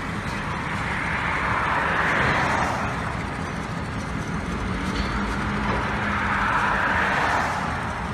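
Two road vehicles drive past in turn, their tyre and engine noise swelling and fading about two seconds in and again about seven seconds in. Under them runs the steady low hum of an EMD GP38-2 diesel locomotive's V16 prime mover as it rolls slowly along the track.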